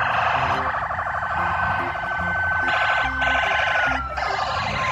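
Police car siren with a rapid warble; its pitch slides down over the last second or so.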